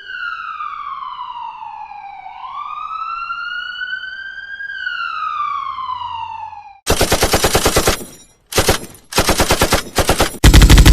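Siren sound effect wailing down, up and down again in one smooth sweep. About seven seconds in, it gives way to rapid machine-gun fire in three short bursts, then louder continuous fire near the end.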